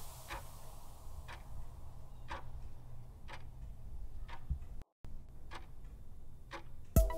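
Quiz countdown-timer sound effect ticking once a second over a faint low hum, with a brief dropout about five seconds in; music comes in just before the end.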